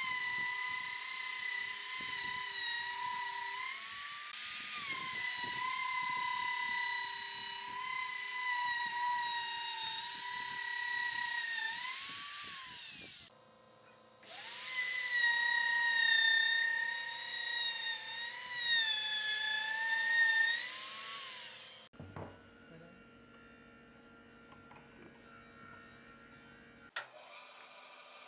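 Compact trim router running at full speed as it routs the edge of an oval cutout in a pine board, a high whine that sags in pitch as the bit bites into the wood. It stops about 13 s in and runs again from about 14 s to 22 s. After that only a much quieter steady hum is left, with a sharp click near the end.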